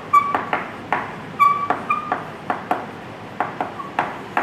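Chalk writing digits on a chalkboard: a quick, irregular run of sharp taps as the chalk strikes the board, several of them followed by brief high squeaks.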